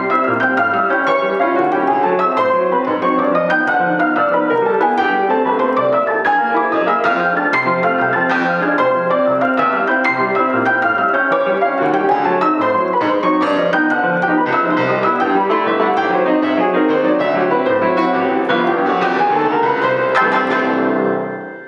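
Grand piano played four hands: a lively rumba with runs that rise and fall again and again over a steady bass. It ends just before the close on a final chord that dies away.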